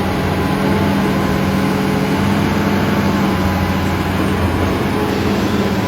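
Hitachi Zaxis 200 hydraulic excavator's diesel engine running at a steady speed.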